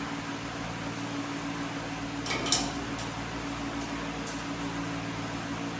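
Steady mechanical hum, like a shop fan, with one sharp metal clink about halfway through and a few lighter ticks of tools and parts being handled.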